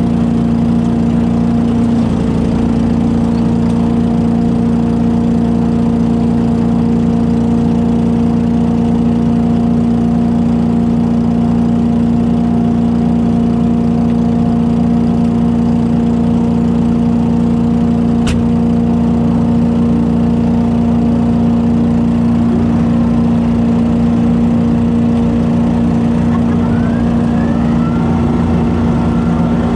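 Engine of a leaf-vacuum and mulching rig running steadily at constant speed, with a strong even hum. A single sharp click sounds a little past the middle, and short faint rising whines come in near the end.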